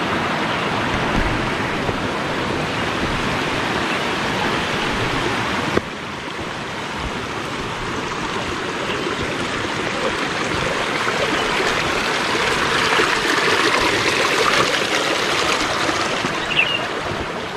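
Steady rushing of a flowing stream. It drops suddenly about six seconds in, then slowly swells again.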